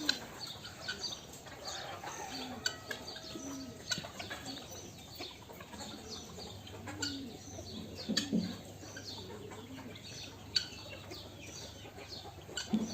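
Farm birds calling: scattered high chirps, with short low coos and clucks from the doves and chickens in the pens.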